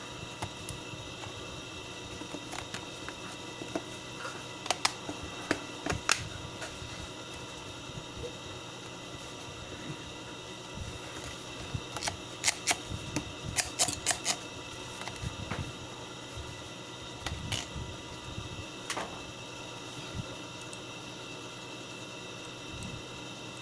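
Scattered sharp clicks and taps from a headset being handled while it is tested after repair, with a quick run of clicks about halfway through, over a steady low hum.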